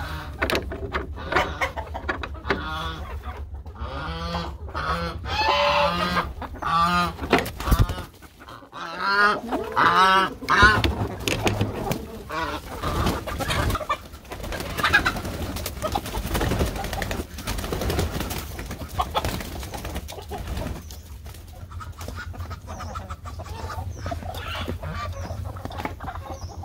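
A flock of chickens clucking and calling, with a run of repeated loud calls in the first ten seconds or so, over a steady low hum.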